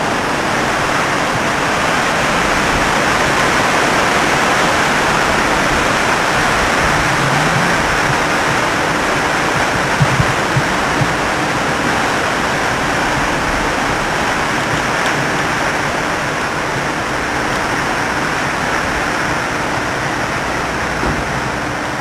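Steady rushing noise of a windstorm, wind blowing through the trees, with a couple of brief knocks about ten seconds in.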